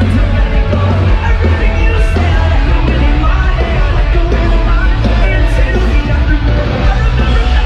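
Loud heavy rock music with shouted vocals and a heavy, unbroken low end.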